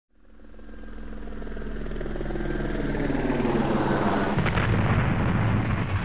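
Intro sound effect: a low hum of several steady tones swells steadily louder over a few seconds and builds into a loud, dense rush.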